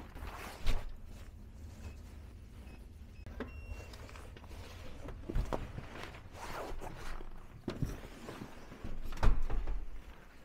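A door with an electronic touchscreen keypad deadbolt being unlocked and opened: a short electronic beep about a third of the way in, then scattered knocks, thumps and footsteps, the loudest thump near the end.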